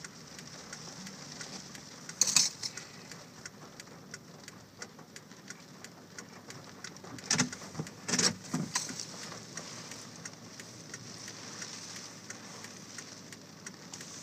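Hurricane rain pattering steadily, with many sharp drops striking close to the microphone. A few louder bursts stand out, about two seconds in and again around seven to eight seconds in.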